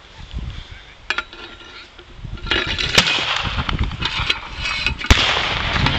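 Scattered sharp bangs and cracks from a mock WW2 battle: blank gunfire and pyrotechnic charges. The loudest crack comes about three seconds in and a heavier bang about five seconds in. Under them a loud rushing hiss starts about two and a half seconds in.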